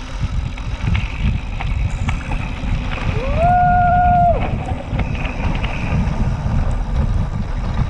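Wind buffeting the microphone and the low rumble of mountain-bike tyres rolling over a dirt trail. About three seconds in, a single high held tone rises in, holds for just over a second and drops away.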